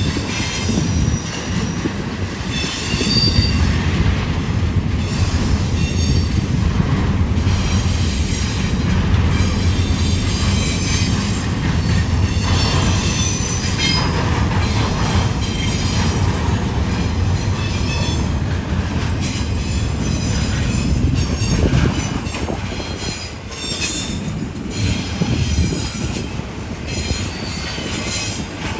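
Double-stack intermodal freight train's container cars rolling past: a steady rumble of steel wheels on rail, with high-pitched wheel squeal coming and going every few seconds.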